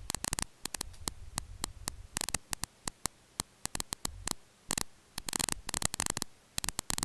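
A computer file's raw data played as audio by the Binary Waterfall player: an irregular run of sharp clicks and short bursts of static, with a low hum in stretches.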